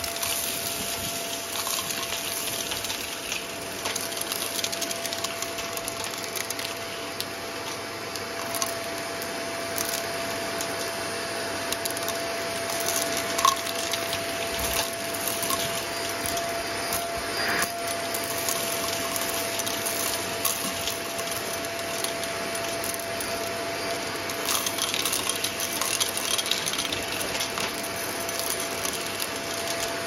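Vacuum cleaner running steadily with a constant motor whine, its metal wand sucking up a mix of confetti, glitter and small debris from a carpet. Scattered ticks and rattles come from bits being pulled up the tube.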